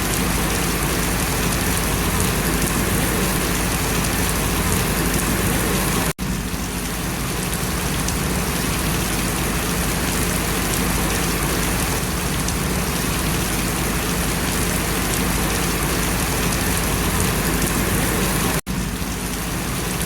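Steady rain falling on banana plants, a dense even patter. The sound cuts out for an instant about six seconds in and again near the end.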